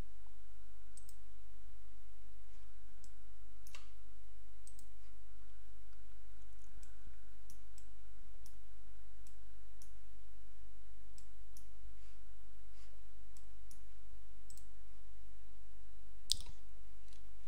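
Irregular clicks of a computer mouse, scattered throughout, with a sharper click near the end, over a steady low hum.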